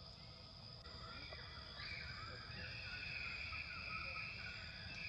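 Insects droning in the forest: a steady high buzz that swells louder about two seconds in, with faint chirping calls beneath it.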